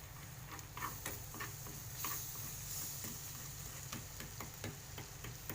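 Ginger juice and palm sugar being stirred as they heat in a pan to dissolve the sugar: light, irregular clicks of the utensil against the pan, several a second.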